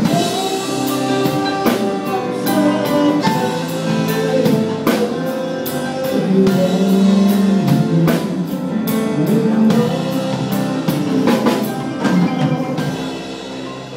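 Live band playing amplified music: electric guitars over a drum kit with frequent drum and cymbal strikes, getting quieter near the end.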